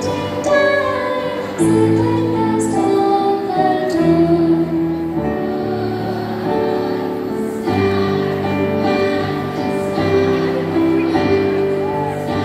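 A women's choir singing a slow Christmas carol with instrumental accompaniment, holding long sustained notes.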